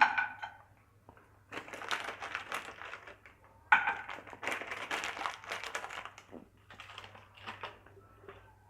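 Cashew nuts and raisins crackling and sizzling in hot ghee in a frying pan, in two stretches of about two seconds each, then fainter.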